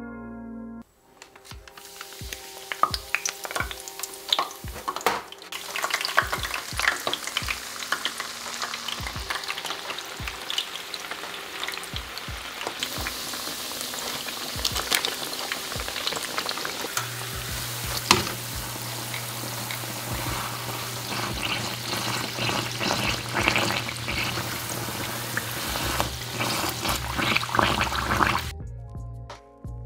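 Spiral of churro choux dough deep-frying in hot oil: a steady sizzle thick with quick crackling pops.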